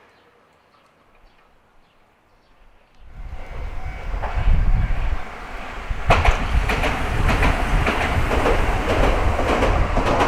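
Electric train arriving and passing close by: after about three quiet seconds, a rumble builds quickly and stays loud, with the wheels clacking over the rail joints from about halfway in.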